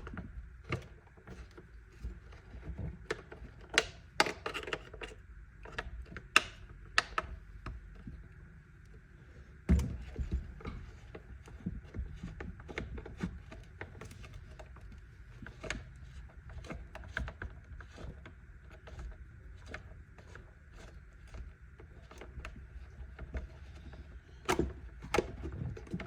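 Scattered clicks and knocks of a Torx screwdriver working on a Ryobi chainsaw's plastic housing as its cover screws are undone, with a few louder knocks in the first half and again near the end.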